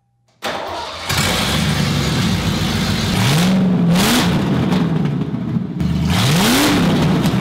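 1989 Mustang LX's 5.0 302 V8 running through straight headers, loud and rough, revved twice with the pitch sweeping up and dropping back, about three seconds in and again about six seconds in.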